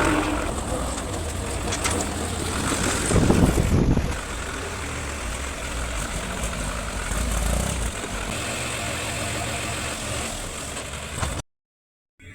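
Heavy machinery's diesel engine running steadily with a low rumble, swelling louder for about a second around three seconds in. Near the end the sound cuts out completely for under a second, then comes back.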